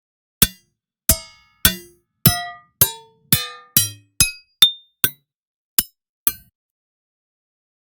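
About a dozen single metallic hits from the Keepforest "Ferrum" Kontakt library, played one at a time over about six seconds. Each is a sharp clink or clank of struck metal with a short ring at its own pitch, with silence between.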